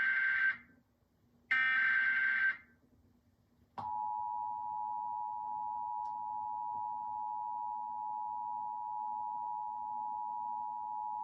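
Emergency Alert System SAME header: two bursts of screechy digital data tones, about a second each, followed from about four seconds in by the steady two-tone EAS attention signal. Together they announce an emergency alert, here a flash flood warning.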